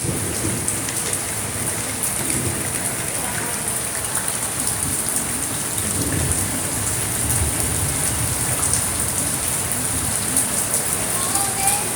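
Steady heavy rain on a surface, with many scattered sharp drop ticks over a low rumble. A few short tones come in near the end.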